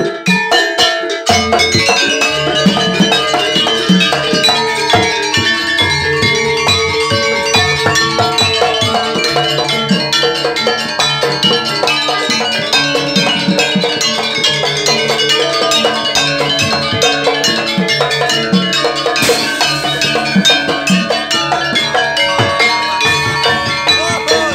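Jaranan gamelan ensemble playing: kendang hand drums keep a steady, dense rhythm over ringing tuned gongs and metal percussion, starting about a second in.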